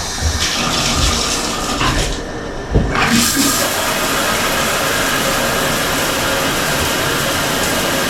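Shower running through a newly installed shower head, a steady rush of spraying water that gets fuller about three seconds in, as it is tested for leaks.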